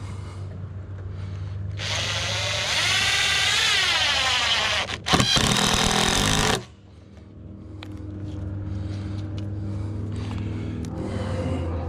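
A handheld power tool motor, a drill, runs for about four seconds with its pitch gliding up and down, stops briefly, then runs again for about a second and a half before cutting off. A steady low hum continues underneath.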